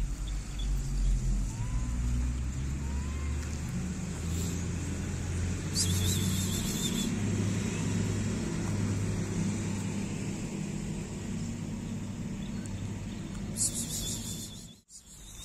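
A motor vehicle's engine running close by: a steady low rumble. Two short high-pitched hissing noises come through, one about six seconds in and one near the end.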